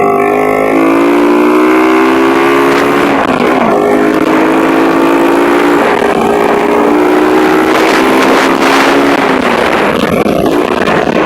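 Motorcycle engine running hard while riding, its note rising and held in three stretches with brief breaks between them.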